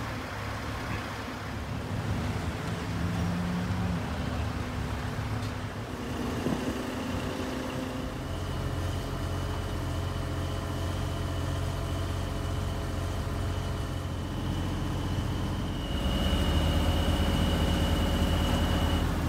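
Heavy machinery engine running steadily on a sign-installation site, with a high, steady whine joining in partway through. The sound grows louder for the last few seconds.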